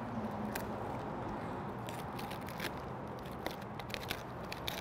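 Outer leaves of a raw green cabbage being peeled off the head by hand: scattered crisp crackles and snaps as the leaves tear and break away.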